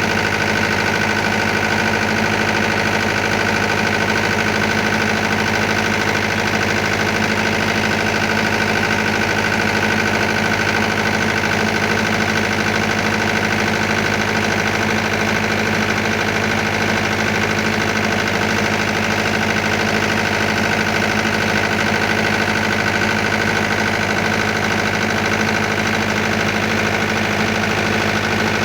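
Mahindra diesel generator running steadily after repair, an even engine drone with a steady high whine over it that does not change throughout.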